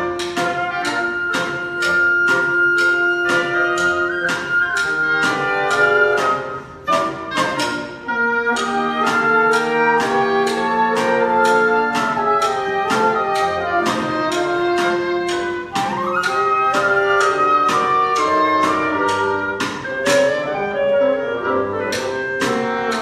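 Woodwind quintet of flute, oboe, clarinet, bassoon and French horn playing a lively classical piece, with several melodic lines moving together over a steady beat of sharp strokes.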